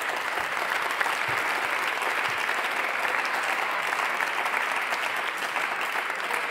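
Applause from members of parliament: many hands clapping together in a steady, even patter.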